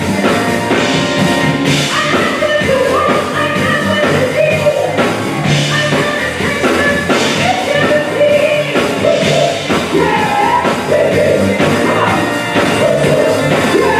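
Band playing a song with a singer's voice carrying the melody over drums and instruments.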